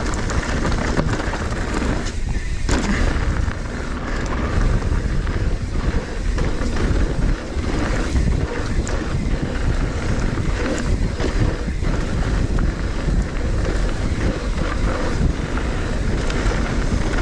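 Trek Slash 8 full-suspension mountain bike descending a dirt trail at speed: steady wind rush over the microphone and tyre roar on the dirt, with frequent knocks and rattles from the bike over bumps.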